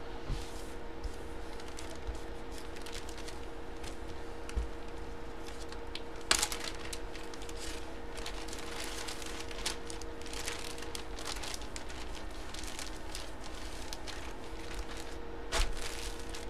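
Plastic packaging crinkling and rustling as a folded jersey is handled, with scattered sharp crackles, two louder than the rest. A steady low hum runs underneath.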